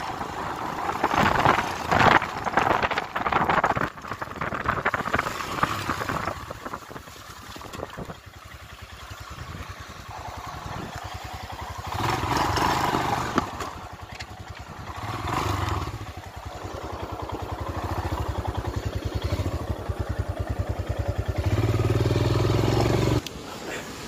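Royal Enfield Himalayan's single-cylinder engine running at low speed over a rough dirt and rock track, with wind on the microphone in the first few seconds. Near the end the engine runs louder and steadier, then cuts off suddenly.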